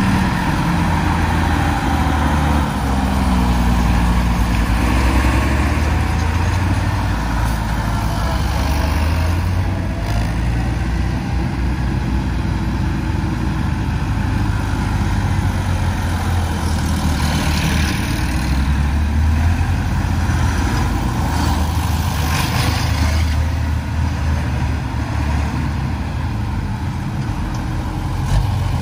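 Old tractor engines running in a low, steady drone, with the engine speed dipping and picking up again a few seconds in.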